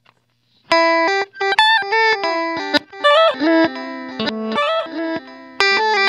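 Electric guitar notes played through the Line 6 HX Stomp's Glitch Delay with its mix turned all the way up. Starting under a second in, the notes come out as stuttering fragments that cut in and out abruptly and jump from pitch to pitch.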